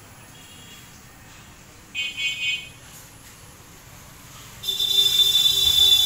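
A horn-like tone is held for about a second and a half near the end and is the loudest sound. A shorter, fainter high-pitched beeping in about three pulses comes about two seconds in.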